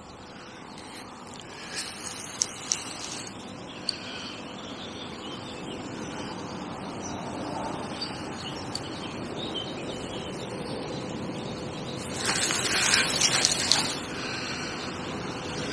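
Steady outdoor lakeside background noise, with a few sharp clicks in the first few seconds and a louder, noisy rush lasting about two seconds near the end.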